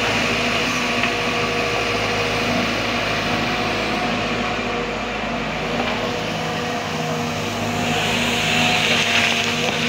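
Sumitomo SH210 hydraulic excavator's diesel engine running steadily under load as the machine digs and swings soil, with a hiss that grows louder near the end.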